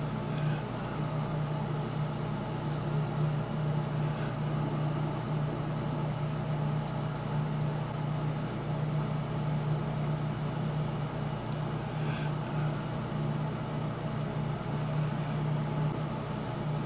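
Steady low machine hum, slightly pulsing, with a few faint light clicks of small parts being handled on a workbench.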